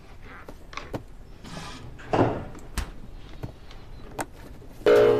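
Cardboard cake box handled on a counter, its cover slid up off the base: light knocks and rubs, with one louder scraping rub about two seconds in. Near the end a plucked music note comes in.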